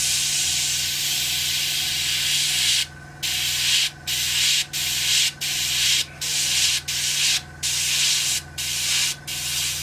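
Airbrush hissing as black paint is sprayed along panel lines: a steady hiss for about three seconds, then a string of short sprays, each cut off briefly as the trigger is let go, over a steady low hum.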